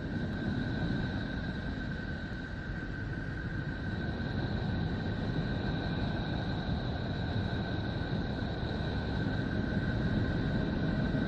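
The 'sound of Neptune': a space sonification, the planet's electromagnetic field data converted into audio. It is a steady deep rumbling hiss with two faint steady high tones over it, growing slowly louder.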